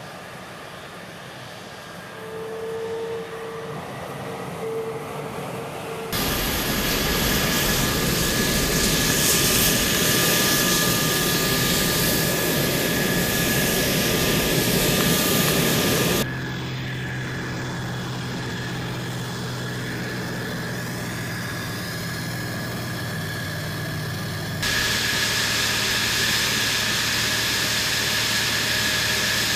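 Fighter jet engines running on the flight line: a steady jet roar with a high turbine whine. The sound shifts abruptly several times, loudest in the middle, dropping to a quieter hum and then rising to a louder hiss near the end.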